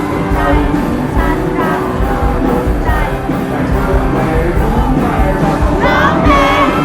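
Live rock band playing loudly, drums and guitars under a sung vocal line that grows stronger near the end.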